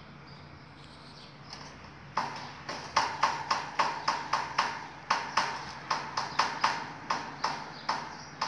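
A fast run of sharp taps or clicks, about four a second, each with a brief ringing, starting about two seconds in after a quiet stretch.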